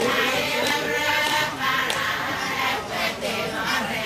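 A group of voices singing a chant together, several voices overlapping, with a few sharp claps.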